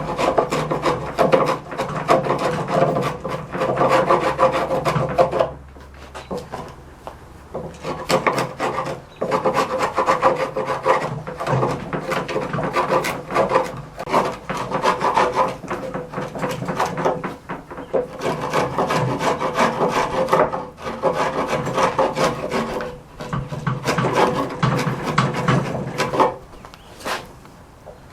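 Chisel driven by light, rapid hammer taps and scraped along wood, paring off the leftover nubs in the bottom of a dado. The strokes come in quick runs of a few seconds with short pauses between.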